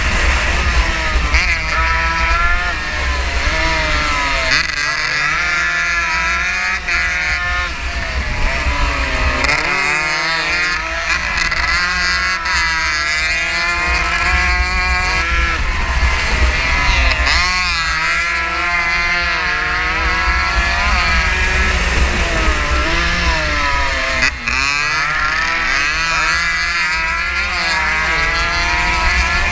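Small 115cc racing motorcycle engine at full race pace, revving up and down several times as the rider accelerates, shifts and backs off through the corners.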